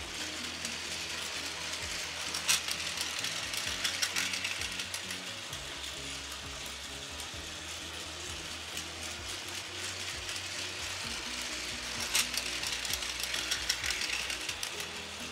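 Plarail toy train (Train Suite Shiki-shima) running on blue plastic track: its small battery motor and gears whirr steadily, with louder clicking and clattering about two and a half seconds in and again about twelve seconds in.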